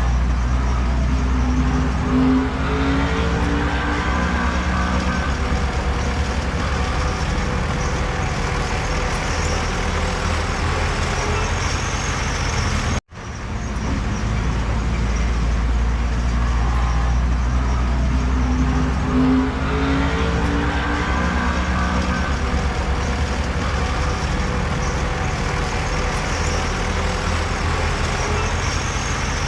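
Diesel engine of heavy earthmoving machinery running steadily under load, rising in pitch for a few seconds as it works. The sound cuts out abruptly for a moment about halfway through.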